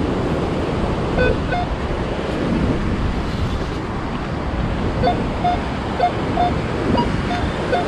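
Surf and wind on the microphone, with short beeps from a Minelab Equinox 800 metal detector sounding off a target, in clusters about a second in and again from about five seconds on. The beeps are its response to a coin, which turns out to be a dime.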